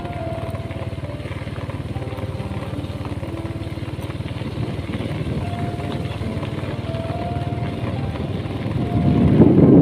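Small motorcycle engine running steadily while riding, a fast low pulsing under the ride, with a louder rushing rumble swelling in near the end.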